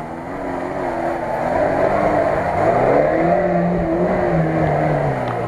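Lada Niva 4x4's engine revving as it drives off through mud, the revs climbing about halfway through and easing off near the end.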